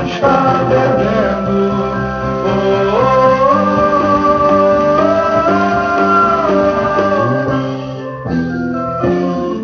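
Song music: a voice singing long held notes that glide up about three seconds in, over guitar accompaniment.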